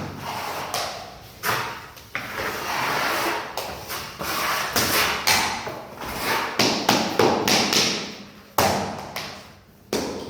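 Uneven series of sharp knocks and thuds, with a stretch of scraping about two seconds in, from floor-laying work with SPC planks.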